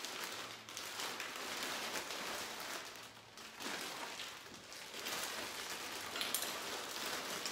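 Plastic zip-top freezer bags crinkling and rustling as they are handled and food is packed into them, with a sharper crackle about six seconds in.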